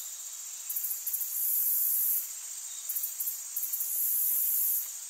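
Insects chirring in very high-pitched bouts about a second and a half long, coming back roughly every two seconds, over a steady high hiss.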